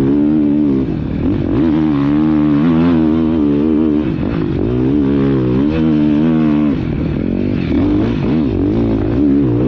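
Motocross bike engine at race pace, the revs rising and falling several times as the throttle is opened and closed, heard close up from the rider's helmet camera.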